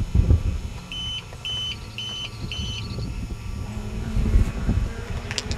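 Rumbling knocks and rubbing from a handheld camcorder being moved about, with four short high electronic beeps, about two a second, starting about a second in. A low steady hum comes in near the end.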